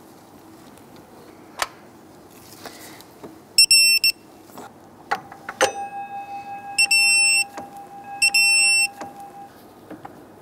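Digital torque wrench beeping as the water pump bolts are brought to 43 foot-pounds: three short high beeps, the signal that each bolt has reached its set torque. A lower steady tone sounds for about four seconds in the middle, with scattered clicks of the wrench on the bolts.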